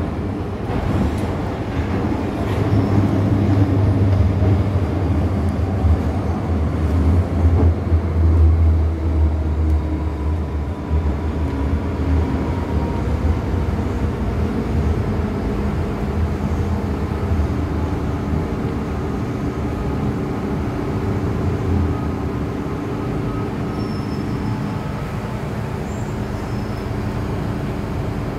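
MTR M-Train electric multiple unit running through a tunnel, heard from inside the car: a steady rumble of wheels on rail with a strong low motor hum in the first half and several steady whining tones, as the train approaches a station.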